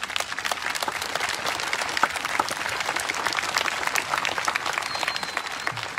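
Crowd applauding: many people clapping at once in a steady patter that dies down near the end.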